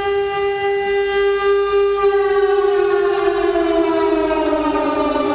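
Civil defense air raid siren sounding an air alert: a steady tone, then, about two and a half seconds in, a slow fall in pitch that carries on to the end.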